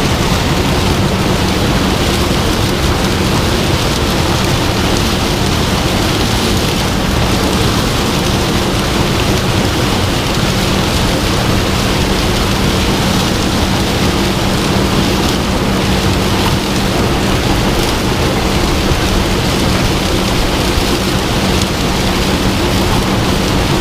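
Combine harvester running steadily under load: a constant engine hum under a loud, even rush of machine noise.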